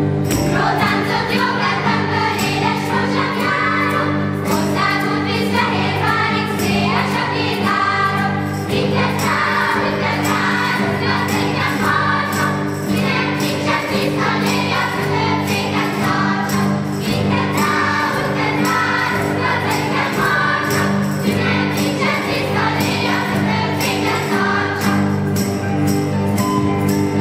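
Children's choir singing a song, accompanied by acoustic guitar, cello and recorder, with a light jingling rhythm.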